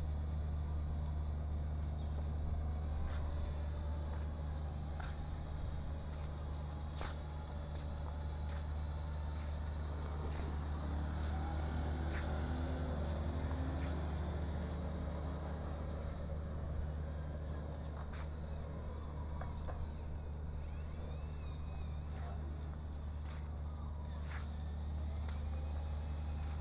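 Insects shrilling steadily in a high, unbroken drone, over a steady low hum, with a few faint clicks.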